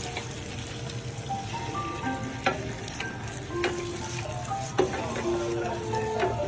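Food sizzling as it fries in a pan and is stirred, with two sharp knocks of a utensil against the pan, one about two and a half seconds in and one near five seconds in.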